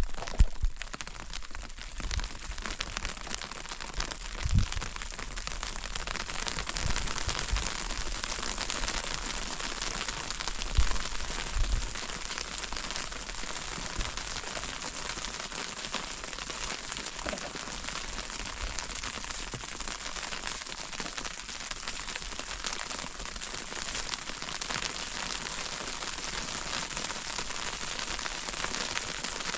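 Steady crackling hiss, with a few dull low thumps in roughly the first twelve seconds.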